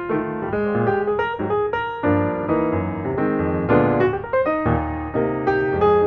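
Background piano music: a continuous run of notes and chords.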